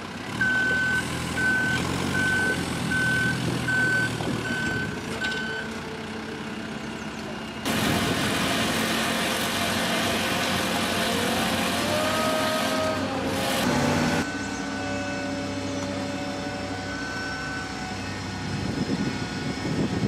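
Heavy construction machinery running with a low engine hum, while a warning alarm beeps about eight times at a steady pace of roughly one and a half beeps a second in the first six seconds. From about eight to fourteen seconds a louder even rushing noise covers the engine, which is heard humming again afterwards.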